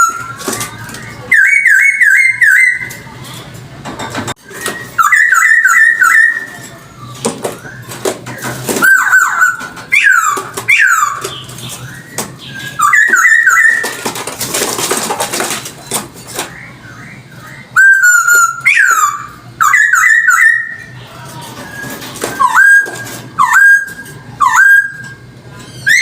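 Chinese hwamei (poksay hongkong) singing: loud, varied whistled phrases of quickly repeated slurred notes, some rising and some falling, with short pauses between phrases. A harsher, scratchy stretch comes about midway.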